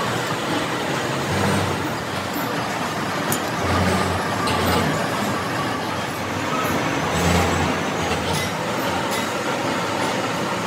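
Steady mechanical noise of a large manual lathe workshop, with several dull knocks and short metallic clinks at irregular intervals as a steel wrench is worked on the tool-post clamp bolts.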